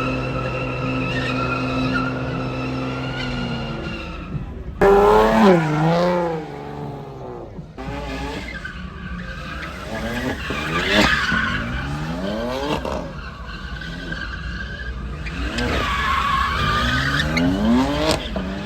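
Drift cars sliding through: engines revving up and down again and again while the tyres squeal against the asphalt. The loudest rev comes about five seconds in, after a steady engine note at the start.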